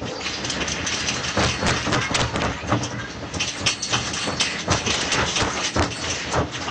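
Low rumble with dense, irregular rattling and clattering of objects, typical of a room shaking in an earthquake.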